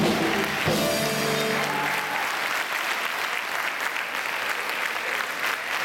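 Audience applauding as a live choir and band end a song; the held final notes fade out about two seconds in and the clapping carries on alone.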